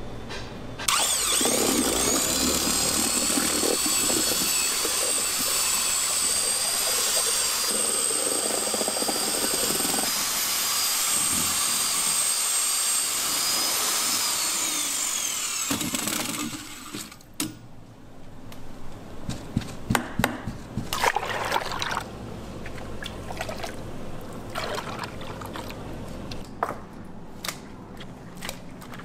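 Old corded electric drill turning a long steel rod to mix batter in a metal bowl: the motor starts about a second in with a rising whine, runs steadily for about fifteen seconds, then winds down. After it stops, scattered knocks and clatter follow.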